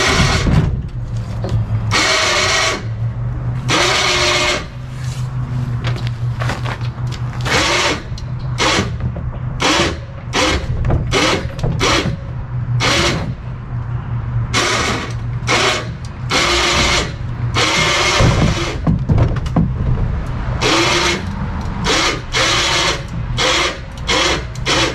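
Electric winch hauling a paddle boat up on its strap, the motor whining in short repeated bursts over a steady low hum.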